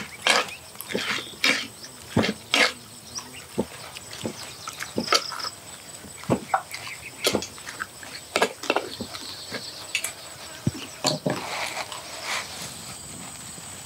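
A spoon scraping and clinking against a clay bowl while whole lizards are stirred into a wet chili paste: irregular clicks and scrapes that thin out near the end.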